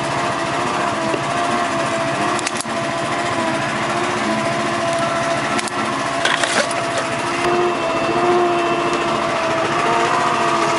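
Lobster boat's engine running steadily, a drone whose pitch wavers slightly, with a few short clicks about two and a half and six and a half seconds in.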